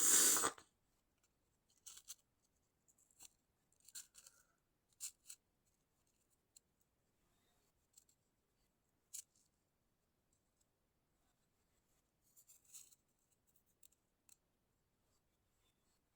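A single stifled sneeze: a short, sharp burst of air held back through the nose and mouth at the start, followed by faint scattered clicks and rustles.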